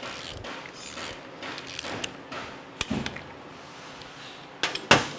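Hand ratchet wrench driving the bolts of a Milwaukee-Eight engine's cam and crank gears. Short rasping ratchet strokes come about every half second, then a few sharp metallic clicks, the loudest just before the end.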